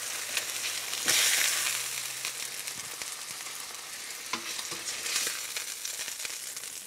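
Pork chops sizzling in hot olive oil in a stainless steel skillet as they are lifted out with metal tongs, with a few light clicks of the tongs against the pan. The sizzle swells about a second in and then slowly dies down, the burner having just been turned off.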